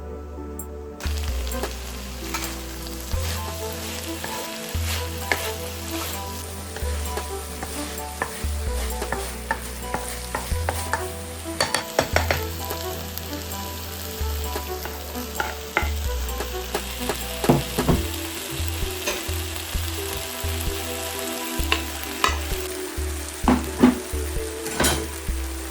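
Food sizzling in a hot frying pan while being stirred, with frequent clicks and scrapes of a utensil against the pan.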